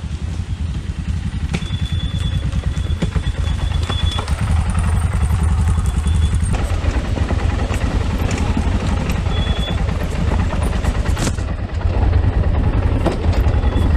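Dual-sport motorcycle engine running at low revs with an even, rapid firing pulse as the bike rolls down a steep, rough dirt trail.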